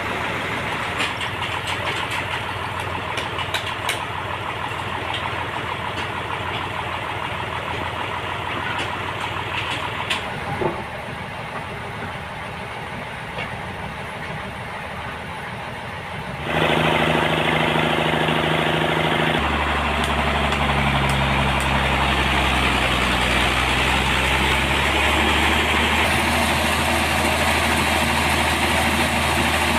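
Sawmill machinery running steadily. About halfway through it jumps abruptly louder into a steady, deeper engine hum.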